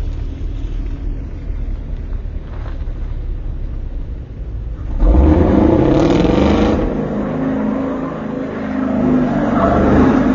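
Car engine running under way, with a steady low rumble, then louder about five seconds in as it accelerates, its pitch rising and falling through the gears.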